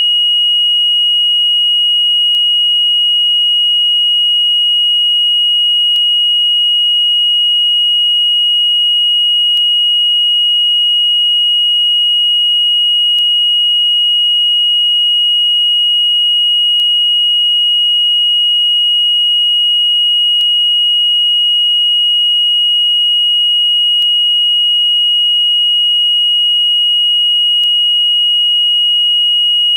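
Yongyang (TYY) fire alarm control panel's buzzer sounding one continuous, steady high-pitched tone: the panel's fire-alarm indication.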